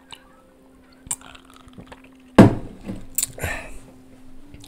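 Can of energy drink handled and drunk from: a few light clicks, then a sharp sound about halfway through followed by short sips and swallows. A faint steady hum runs underneath.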